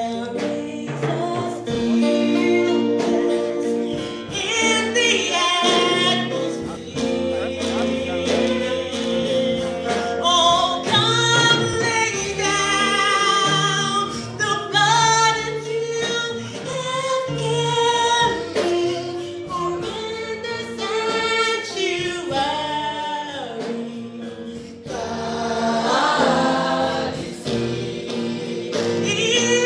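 A woman singing a gospel song solo into a handheld microphone, her voice sliding and holding long notes over steady instrumental chords and a bass line.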